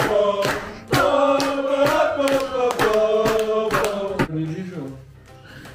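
A group singing a birthday song together, clapping in time at about two to three claps a second. The singing and clapping stop about four seconds in, leaving quieter room murmur.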